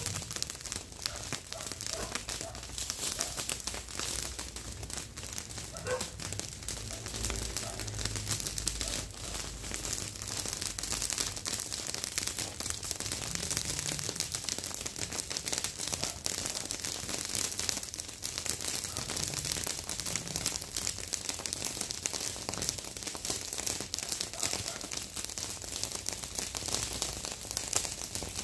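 Open pile of dry brush and garden cuttings burning, crackling steadily with a dense run of tiny snaps and pops.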